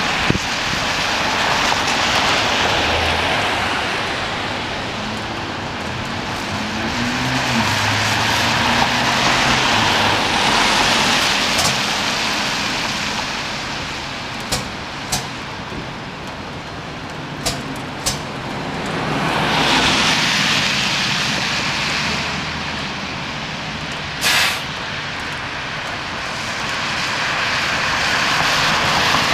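Traffic on a wet street: passing vehicles' tyre hiss swells and fades several times. A few sharp clicks come in the middle, and a short loud burst of air hiss comes about 24 seconds in.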